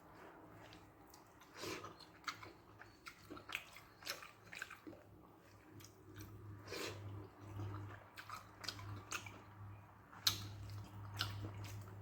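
Close-miked chewing and wet mouth smacks of someone eating rice with a spicy brinjal-and-okra gravy, in irregular clicks with the sharpest smack about ten seconds in.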